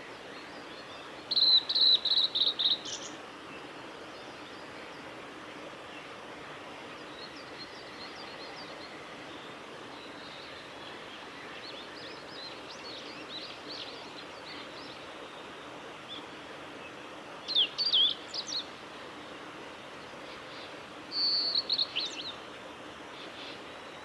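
Male blue-and-white flycatcher singing: three loud, high song phrases of one to two seconds each, the first shortly after the start and two more close together later on, over a steady background hiss with faint distant bird notes in between.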